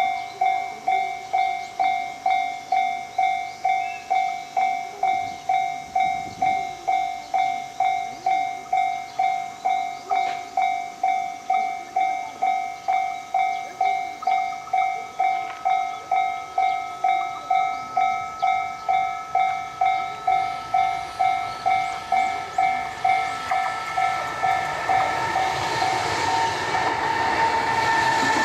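Japanese level-crossing alarm bell ringing steadily, an even ding about twice a second. From about 20 seconds in, an approaching train's running noise grows louder and reaches the crossing near the end, drowning out the bell.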